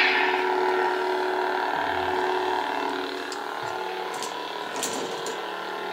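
Lightsaber's sound board humming through its built-in speaker, steady with several tones, as the tail of its ignition sound fades over the first second. A few faint clicks a few seconds in.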